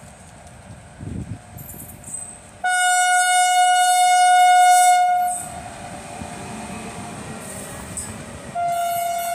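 Indian Railways electric locomotive sounding its horn: one loud, single-note blast of about two and a half seconds as it approaches, then the noise of the train running past. The horn sounds again near the end.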